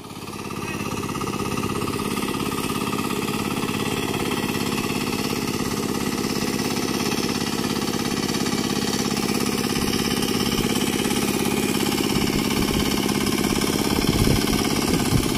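Turtle tiller (pagong hand tractor) engine running steadily with a fast, even putter while the machine works through a flooded, muddy rice paddy.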